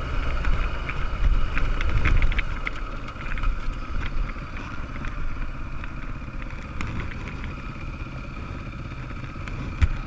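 Beta enduro motorcycle's engine running under the rider, louder for the first few seconds, then easing to a lower, steadier note as the bike slows. A sharp knock near the end.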